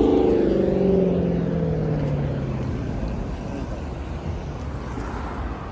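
City street traffic: a motor vehicle passes, its engine note dropping in pitch and fading over the first few seconds, over a steady low rumble of traffic.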